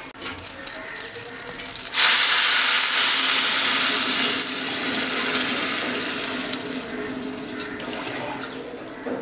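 Water poured in a stream into a cooking pot of fried rice, pumpkin and potato for khichuri: a sudden rushing, splashing pour starting about two seconds in, loudest at first and then gradually easing off.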